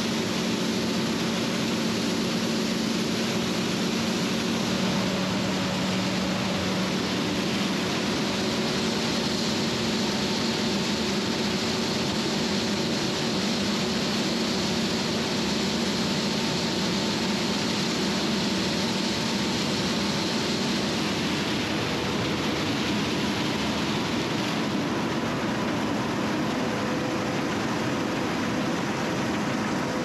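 Combine harvester running steadily: an even engine and machinery drone with a low hum whose pitch drops slightly about five seconds in, over a broad hiss.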